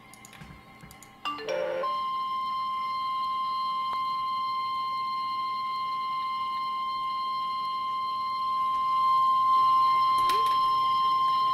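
NOAA Weather Radio 1050 Hz warning alarm tone: a single steady, piercing beep that starts about two seconds in, just after a short burst of sound, and holds for about ten seconds. It is the alert that signals a warning broadcast is about to follow, here a severe thunderstorm warning.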